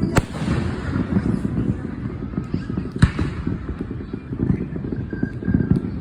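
Fireworks going off: a sharp bang right at the start and another about three seconds in, over a steady low rumble.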